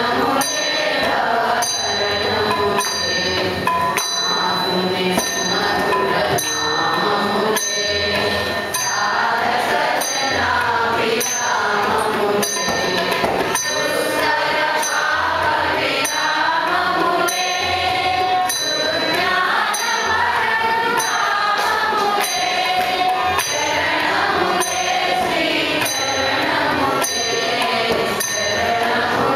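Devotional singing by a group of voices, with metal percussion struck in a steady beat that rings on between strokes.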